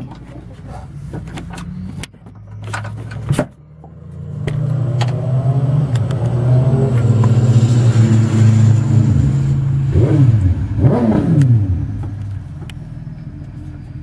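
A motor vehicle's engine passing close by: it builds up about four seconds in, runs steadily, then drops in pitch and fades away around ten to twelve seconds. Light clicks and knocks of parts being handled come in the first few seconds.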